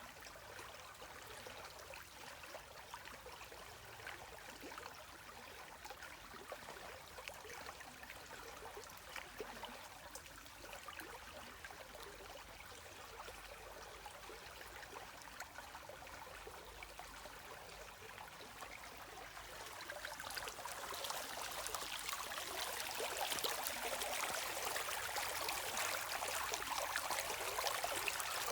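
Running water in a stream, a steady trickling and splashing rush that grows noticeably louder about two-thirds of the way through.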